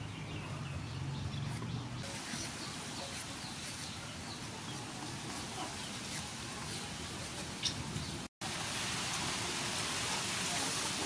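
Outdoor rural ambience: birds chirping over a steady hiss, with a brief dropout to silence a little after eight seconds in.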